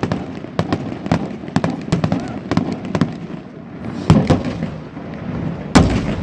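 Fireworks display: a rapid, irregular run of bangs and cracks, with the heaviest bursts about four seconds in and again near the end.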